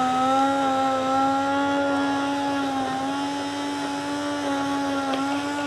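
Electric hand blender running steadily as it purées mushroom sauce in a pot, one even motor tone that dips slightly in pitch about halfway through.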